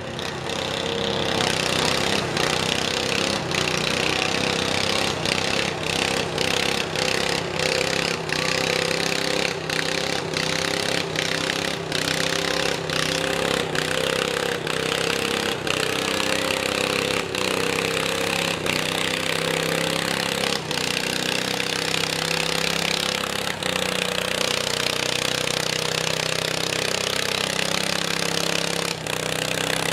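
IH Cub Cadet garden tractor's small engine running steadily at high revs under load while it drags a weight-transfer sled in a tractor pull.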